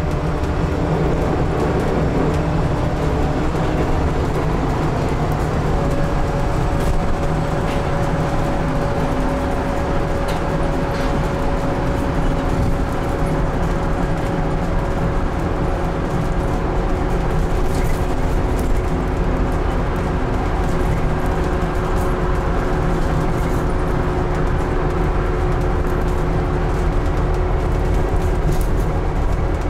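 Scania N280UD double-decker bus heard from the upper deck while under way: steady engine rumble with a driveline whine whose pitch shifts about five seconds in, with a few light interior rattles.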